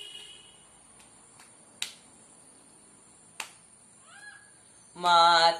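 Two sharp hand claps about a second and a half apart, keeping time between sung lines, and a faint short rising call near the end. Just before the end, a young man's voice comes back in, singing a Carnatic devotional song.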